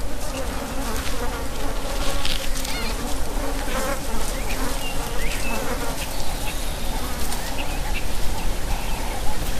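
Flies buzzing steadily, with scattered short, high chirps and squeaks over the buzz.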